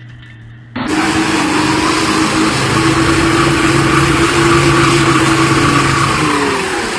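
Toyota Land Cruiser 80 series engine revving hard and held at high revs while its wheels spin in deep mud, the vehicle bogged. The engine starts abruptly about a second in, and the revs fall away near the end.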